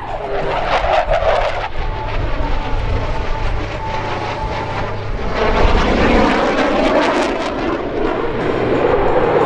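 RCAF CF-18 Hornet's twin General Electric F404 turbofan engines roaring past in a low jet flyby. The sound sweeps in pitch as the jet passes and grows to its loudest a little past halfway.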